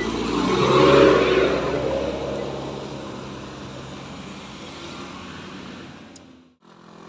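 Mitsubishi light truck's engine labouring up a steep grade as it passes close, loudest about a second in and then fading as it pulls away. A small car's engine follows more quietly, and the sound cuts off abruptly near the end.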